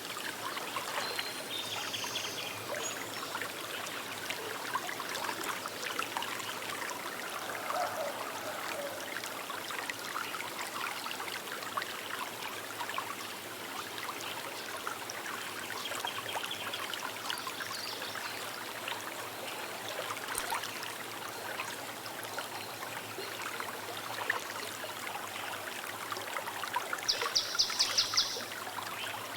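A small river flowing and trickling steadily, with a few brief high bird calls over it. Near the end a bird gives a rapid trill of about eight notes a second, the loudest sound here.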